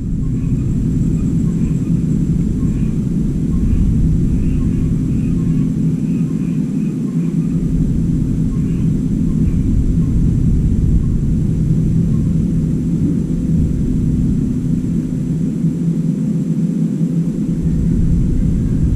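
Steady low mechanical hum with several constant tones and a rumble underneath.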